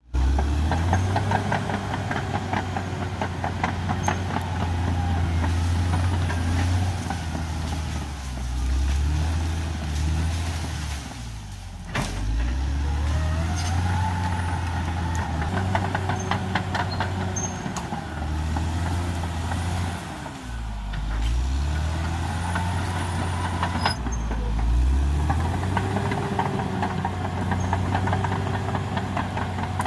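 Caterpillar D6R XL bulldozer's diesel engine working under load, its pitch rising and falling repeatedly as it pushes, with a dense clatter over it throughout. The sound drops away briefly about twelve seconds in and again near twenty-one seconds.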